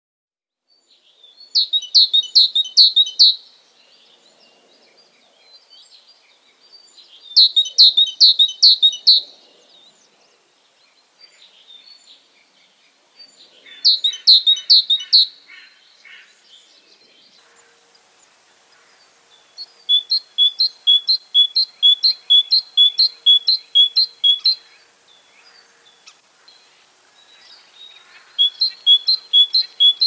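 A tit singing: short phrases of a quickly repeated two-note call, each a second or two long, with pauses between. A longer run of the same notes lasts about five seconds starting around twenty seconds in.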